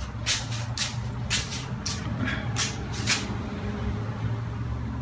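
A small electric motor runs with a steady low hum. Over the first three seconds it is joined by a run of short, sharp hissing strokes, about a dozen of them.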